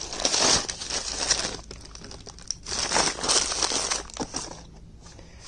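Hands rummaging through a plastic storage tub full of cables, a coiled cable and DVD cases: rustling and light clatter in irregular spells, quieter near the end.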